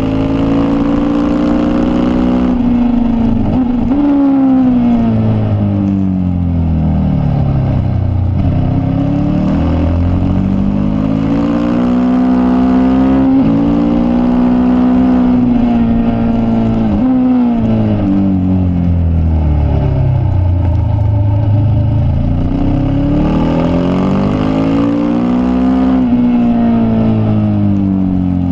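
Racing motorcycle engine at full race pace, heard from a camera mounted on the bike's tail. Its pitch falls away over several seconds as it slows for corners, then climbs again under acceleration, with sudden drops in pitch at upshifts. This happens through several such cycles.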